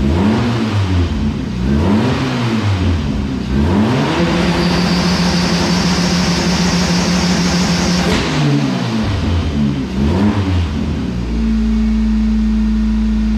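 Turbocharged race car engine, running with its inlet manifold freshly refitted, blipped up and down again and again and held at higher revs for about four seconds with a high whine on top. After more blips it settles to a steady fast idle about eleven seconds in. The owner takes an idle that sits high like this, at about 1700 rpm, for a vacuum leak where the inlet manifold meets the cylinder head.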